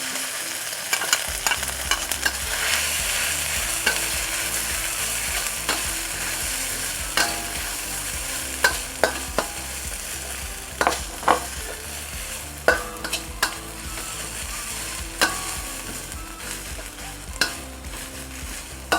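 Pounded spice paste of garlic, shallot, turmeric, ginger and lemongrass sizzling in hot oil as it is stirred, with irregular scrapes and knocks of the stirring utensil against the pan.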